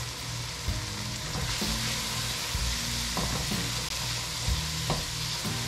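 Onion, tomato and freshly added ground spices sizzling steadily in oil in a cooking pan: the masala being fried before water goes in. A spatula stirs it, with a few knocks against the pan.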